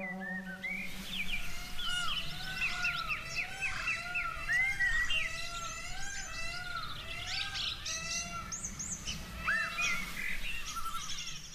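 A chorus of many birds chirping and calling together, with a low arching call repeated about twice a second under many quick, higher chirps and trills. The music stops about half a second in, leaving only the birds.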